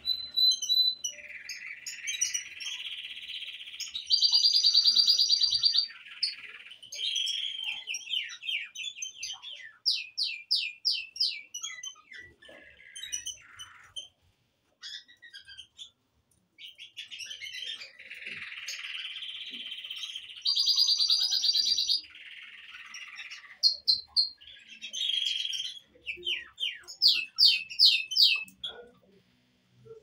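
Canary song: rolling runs of quickly repeated notes and fast high trills, with short gaps between phrases. The same sequence of phrases comes round twice, with a brief pause near the middle.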